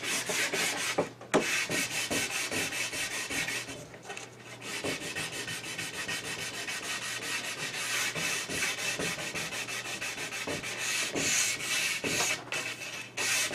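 Hand sanding along the edge of a hardwood board, rubbed back and forth at about four strokes a second to break the sharp arris. There are brief pauses about a second in and around four seconds in, with a single sharp knock just after the first pause.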